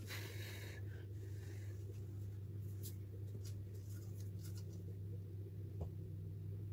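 Steady low hum of room or equipment noise, with a short airy hiss at the start and a few faint ticks.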